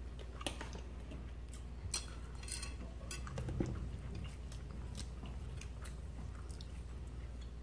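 Close-miked chewing, with scattered sharp clicks and scrapes of forks against plates. A brief low rumble swells about three seconds in.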